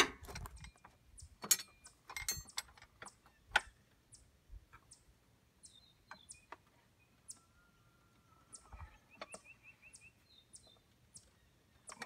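Metal tool clinks and knocks as the fan clutch nut is tightened down with a fan clutch wrench set, loudest in the first few seconds, then only faint, sparse high ticks.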